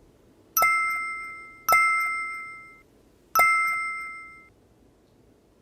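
Three bright ding chimes, each struck sharply and ringing out over about a second, most likely an edited-in sound effect marking each drop of sample solution counted onto the rapid test cassette.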